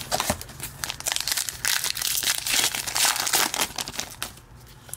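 Foil-lined wrapper of a hockey card pack being torn open and crinkled as the cards are pulled out. It makes a rapid crackling that dies down about four seconds in.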